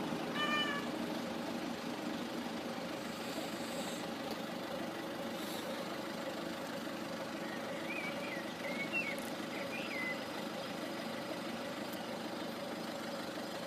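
Steady low engine hum, like a vehicle idling, holding an even level with no pass-by swell.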